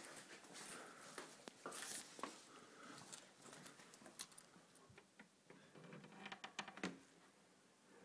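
Near silence with faint rustling and soft scattered clicks: a person creeping quietly through a dark room and handling a phone, with a brief cluster of sharper clicks near the end.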